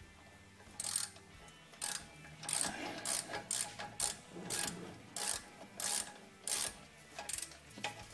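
Socket ratchet clicking in short spurts, about one or two a second, as its handle is swung back between strokes while tightening a brake caliper guide-pin bolt.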